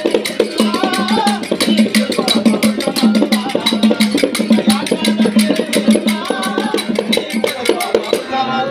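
Instrumental passage of a folk song: an electronic keyboard plays a wavering melody over a steady low drone, with fast, dense hand-percussion strokes several times a second.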